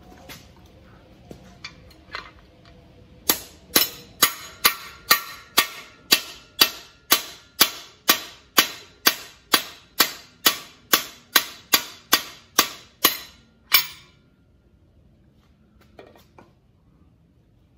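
Steady hammer blows on a cam bearing removal tool in a 327 small-block Chevy engine block, driving out a cam bearing. About two dozen sharp, ringing metal strikes at about two a second start a few seconds in and stop near the end, with a few light taps before and after.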